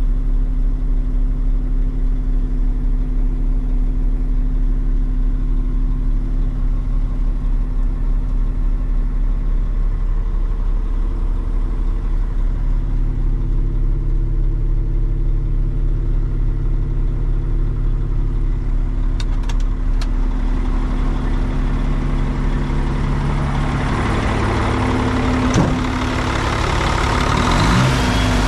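2003 Western Star quad-axle dump truck's Mercedes-Benz diesel engine idling steadily, heard from inside the cab. Near the end it grows louder and harsher as it is heard at the open engine compartment.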